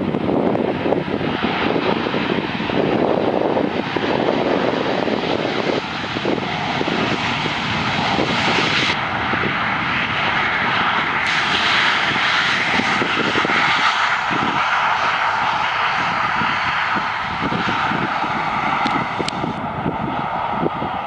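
Boeing 737-800's CFM56-7B jet engines running at high power in hard reverse thrust during the landing roll, a loud steady jet noise. About eight seconds in, the sound shifts from a low rumble to a brighter, higher-pitched noise.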